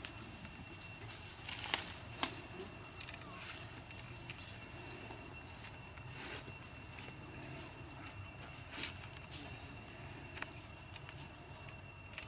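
Outdoor ambience of a small bird giving short high chirps, repeated about once or twice a second, over a steady high-pitched whine, with two sharp clicks about two seconds in.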